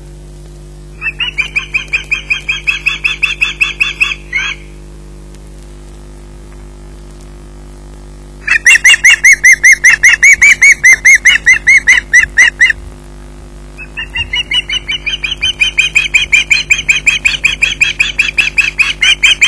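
Ospreys calling: rapid series of sharp piping whistles, about four or five notes a second, in three bouts, the middle bout the loudest.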